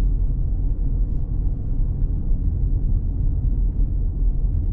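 Car driving at low speed, heard from inside the cabin: a steady low rumble of road and engine noise.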